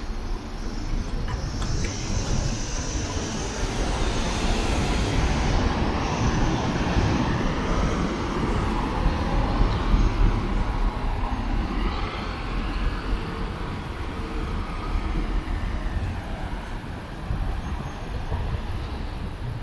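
Road traffic moving through a city intersection: cars and a van driving past, their engine notes rising and falling as they cross and pull away, over a continuous low rumble of tyres and engines.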